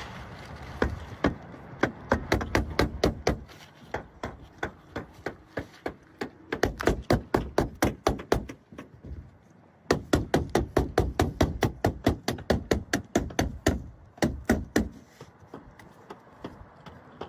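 Nails being driven into asphalt roof shingles: quick runs of sharp strikes, several a second, with a short break about nine seconds in, thinning out near the end.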